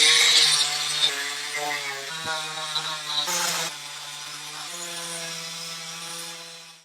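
A handheld power tool motor running, its pitch and load shifting as it works and easing down about two-thirds of the way in.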